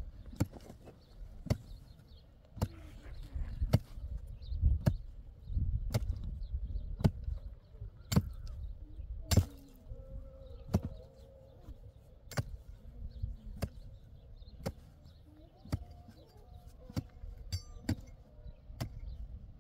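Repeated sharp strikes in a steady rhythm, about one a second, like something being chopped or pounded.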